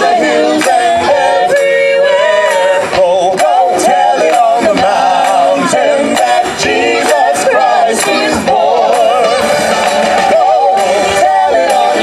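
A mixed vocal quartet of men and women singing a Christmas song in harmony into handheld microphones, several voices at once, steady and unbroken.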